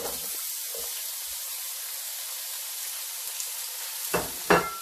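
Freshly added sliced onions sizzling in hot oil, a steady hiss. Near the end come two short knocks, the loudest sounds, as a spatula starts stirring them in the pan.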